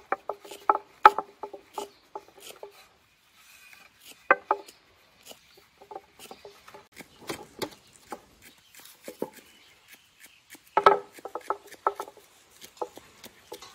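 A long thin wooden rolling pin rolling out dough on a wooden board, clacking and knocking against the board with some rubbing, in irregular bursts with short pauses between them.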